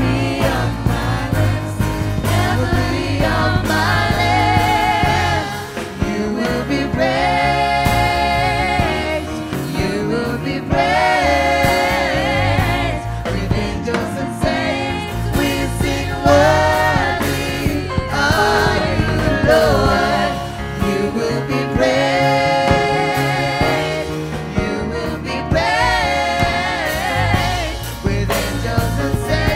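A worship team of several voices singing a gospel praise song together, backed by keyboard and a band with a steady bass line.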